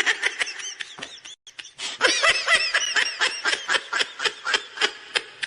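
High-pitched snickering laughter played as a meme ringtone, in rapid pulses about five a second with arching rises and falls in pitch. There is a brief break about a second and a half in, and it cuts off abruptly at the end.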